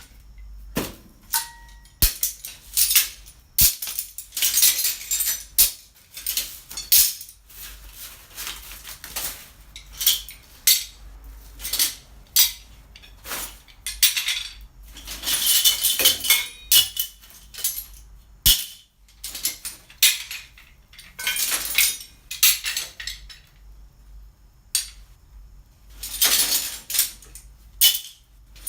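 Steel C-clamps clanking and rattling against one another as a pile of them is handled and moved, in repeated bursts of metal-on-metal clatter with short pauses between.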